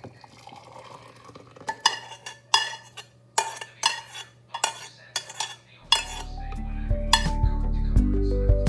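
A spoon stirring in a cup, clinking against its side about a dozen times, each clink briefly ringing. Soft background music comes in about six seconds in.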